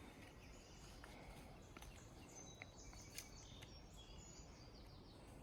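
Very faint outdoor quiet with scattered short, high bird chirps through the middle.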